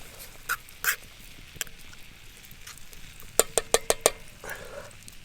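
Metal utensil clinking against camp cookware: a few scattered taps, then a quick run of about five sharp ringing clinks a little past three seconds in.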